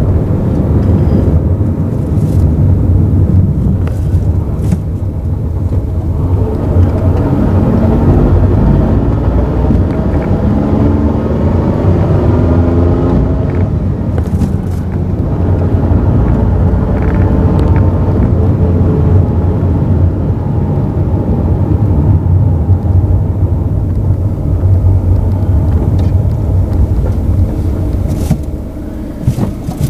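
Mazda AZ-Wagon (MJ23S) kei car running, with its manual transmission making an abnormal noise. A whine climbs in pitch over a steady engine rumble, drops off about halfway through, then rises again.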